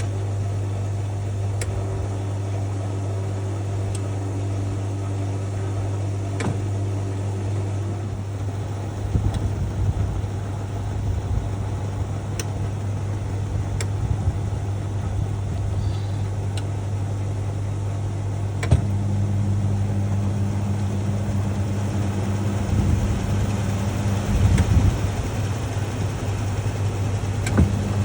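National NA9450PN compact pulsator washing machine running steadily with a low hum, with scattered clicks; about 19 s in a click comes and the hum shifts, gaining a higher tone.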